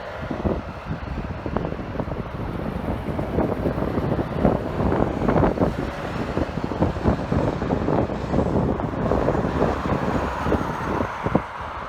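Jet airliner engine noise from a passing aircraft, growing louder through the middle and falling away near the end, with heavy wind buffeting the microphone.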